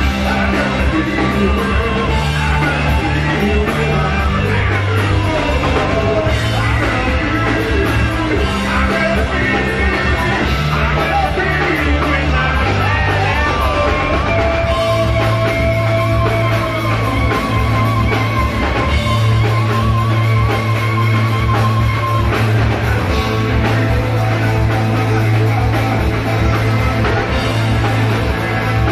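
Rock band playing live, with electric guitar, drum kit and bass under a lead singer. Long held guitar notes with a slight waver come in about halfway through.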